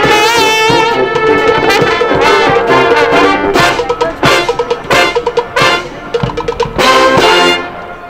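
Military brass band playing the closing bars of a salsa arrangement, with a trombone soloist out front. A wavering held note opens it, short punched chords follow, and a final held chord cuts off about seven and a half seconds in, ending the piece.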